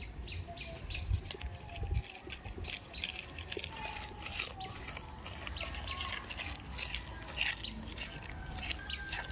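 An irregular patter of many small clicks and rustles, with a few faint short chirps under it.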